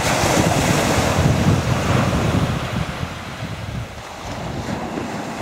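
Small waves breaking and washing onto a shingle beach, with wind buffeting the microphone. The surf is loudest at the start and eases a little past the middle before building again.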